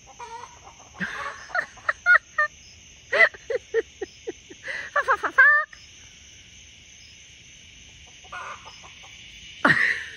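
Chickens clucking in a rapid run of short, clipped calls that sound like a repeated swear word, falling off about halfway through, with one louder call near the end.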